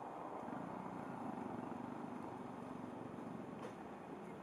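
Steady outdoor background noise, a low even rush with no distinct calls, and a faint tick about three and a half seconds in.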